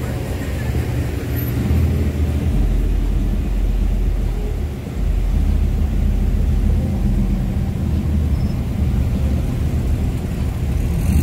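Exhaust of lowered Chevrolet Silverado and GMC Sierra pickups rumbling as they roll past slowly one after another, a steady deep rumble that dips briefly near the middle and then rises again as the next truck comes by.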